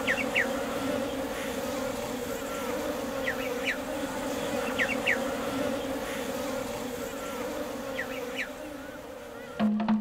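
Honeybee colony buzzing in an opened hive: a steady, even hum, with a few short high chirps over it.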